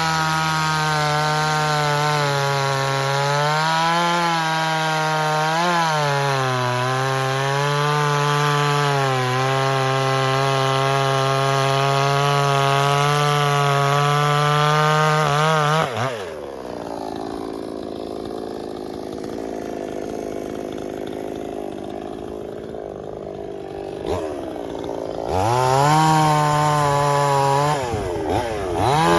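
Two-stroke chainsaw at full throttle cutting through a log, its pitch dipping now and then as the chain bites. About halfway through it drops back to a low idle for several seconds, then revs up again twice near the end.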